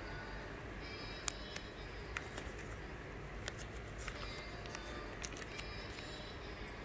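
Thin plastic packaging of cotton-bud packs being handled by hand: scattered sharp crinkles and clicks over a steady low background hum.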